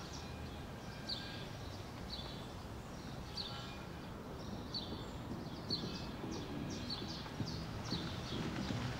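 A bird calling over and over with short, high chirps that fall in pitch, about one a second, over a low rumble of background noise that grows a little near the end.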